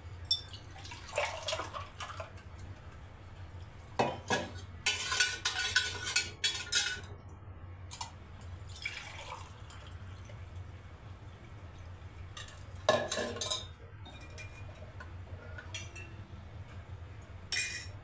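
Lemon water poured from a steel pot into metal tumblers in several separate pours, the longest and loudest a few seconds in, with clinks of the steel vessels against each other. A low steady hum runs underneath.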